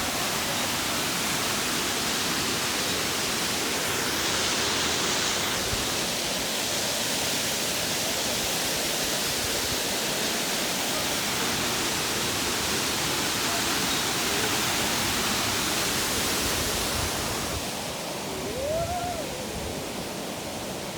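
Waterfall's water pouring, a steady even rush that eases slightly near the end. A short rising-and-falling call sounds over it shortly before the end.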